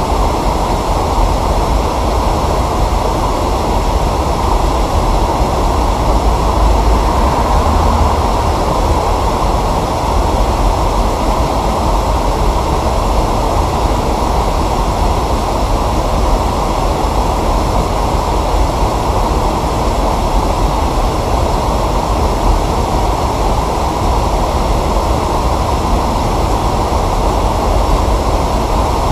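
Steady rushing of water pouring over a waterfall, a constant deep rush with no breaks.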